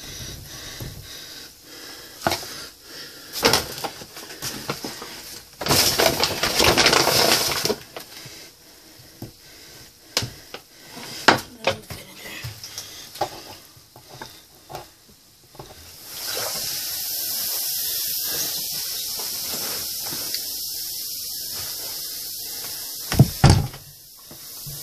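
Containers and cups clattering and knocking while the volcano is reloaded, with a louder rush of about two seconds early on. This is followed by a steady high hiss lasting about seven seconds, then two sharp knocks near the end.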